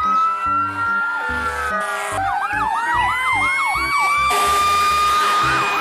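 Several fire engine sirens sound together. Long rising wails level off into a steady tone, and from about two seconds in a fast yelp repeats about three times a second. Background music with a steady beat plays underneath.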